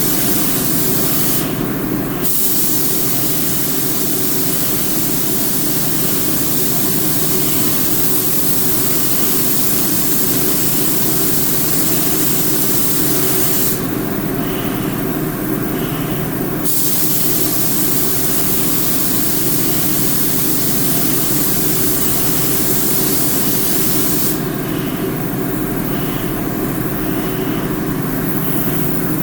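Loud, steady hiss of air or fluid spraying over a steady machine hum. The hiss cuts out briefly three times: once near the start, once in the middle, and for several seconds near the end.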